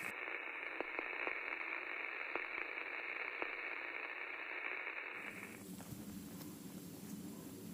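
Radio-style static hiss with scattered crackles, cutting off about five seconds in. A quieter low hum follows.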